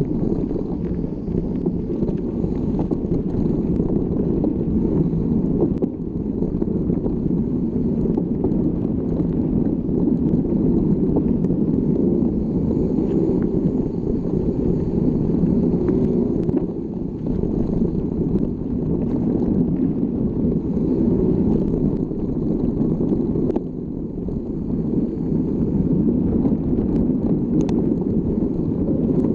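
Steady wind rushing over the camera's microphone while riding a mountain bike, with scattered small knocks and rattles from the bike on the trail.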